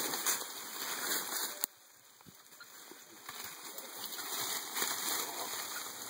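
Rustling and crackling of leaves, twigs and dry leaf litter as a person crawls and pushes through dense shrubs. It drops away abruptly under two seconds in, then builds up again as the movement resumes.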